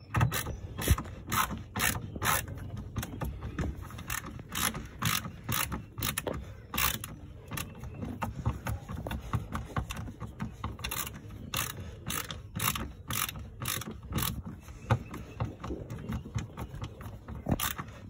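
Hand ratcheting tool clicking as screws are driven into the boat's cable bracket: a long run of sharp ratchet clicks at an uneven pace, roughly two or three a second.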